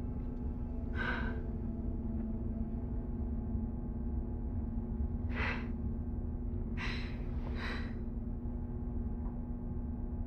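A woman sighing heavily four times, the last two close together about seven seconds in, over a steady low hum.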